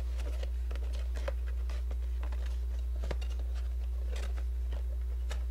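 Rustling, crinkling and light tapping of a red cardboard-and-plastic cake box being handled and opened, with a sharper tap about three seconds in. A steady low electrical hum runs underneath.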